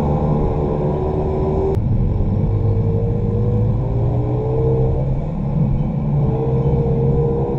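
Small pit bike's engine running hard, its pitch climbing steadily and then dropping back several times as the throttle is worked, over a heavy low rumble. A sharp click comes about two seconds in, just as the pitch drops.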